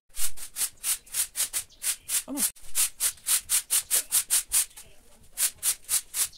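Broom sweeping a concrete floor: quick, even scratchy strokes, several a second, with a short pause about five seconds in.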